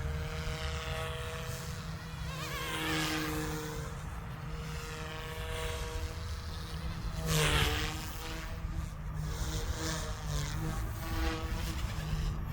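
Small electric RC helicopter in flight, its rotors and motors giving a steady buzz whose pitch shifts with throttle. About seven seconds in it passes close, swelling louder with a rise and fall in pitch.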